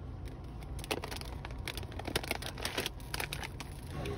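Close handling noises: crinkling and rustling with a quick run of sharp clicks, over a low steady hum.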